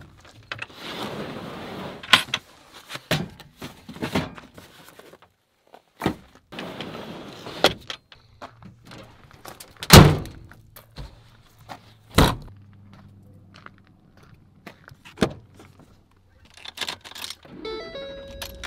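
Gear and boxes being handled and slid into a pickup bed, with rustling and scattered thunks, then a Ford F-150 tailgate slamming shut about ten seconds in, the loudest sound, followed by another heavy knock a couple of seconds later. Near the end keys jangle at the ignition.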